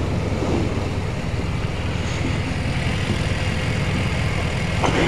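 BMW motorcycle engine idling steadily, with a brief sharp click near the end as the rider's boot works the gear lever.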